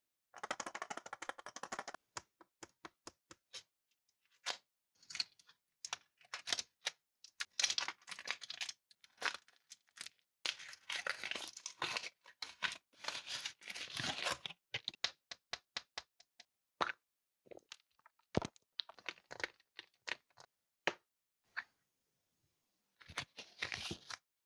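Close-miked foil wrapper of a Chupa Chups surprise chocolate ball crinkling and tearing as it is peeled off, in bursts with scattered sharp clicks and cracks between them. Near the end comes a short paper rustle as a folded leaflet is opened.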